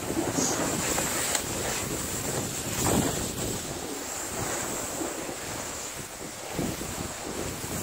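Skis sliding and hissing over packed snow, with wind rushing over the microphone and a couple of sharper scrapes.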